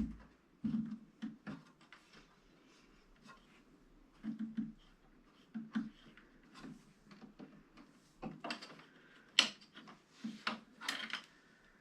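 Scattered clicks, knocks and handling noises of hand work on a 3D printer while its transit screws are being taken out, with several sharper clicks in the last few seconds.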